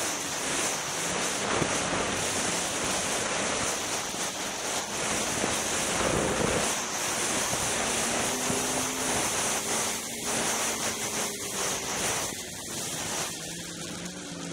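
Polaris Rush Pro-R snowmobile running at speed, largely covered by steady wind noise on the camera microphone. Its two-stroke engine tone comes through faintly in the second half and rises in pitch near the end.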